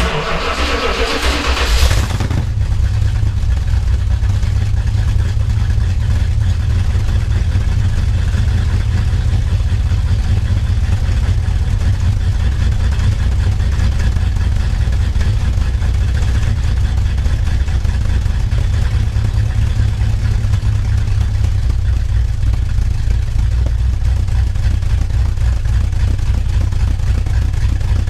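1964 Dodge Custom 880's big-block V8 cold-starting on starter fluid: it fires up suddenly with about two seconds of loud noise, then settles into a steady, loud idle heard from the exhaust.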